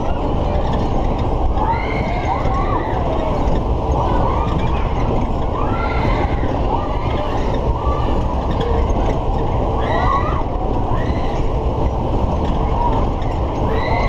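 Steady loud rumble and rushing air on the camera of a Matterhorn fairground ride spinning at speed. Over it, high wavering wails rise and fall every few seconds.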